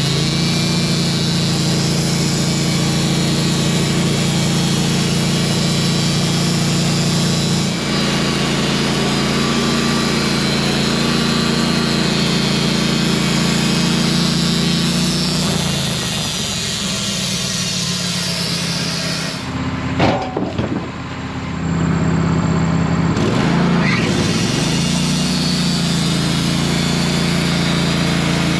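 Wood-Mizer portable band sawmill running, its blade cutting through a pine log. About twenty seconds in the engine speed drops and then climbs back up before it settles into the same steady running.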